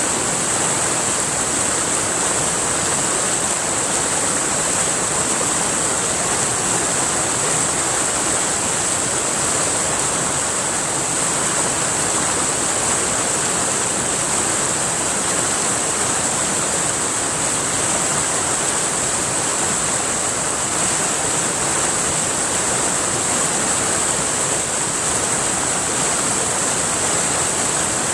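River water rushing steadily, a continuous even hiss that does not change.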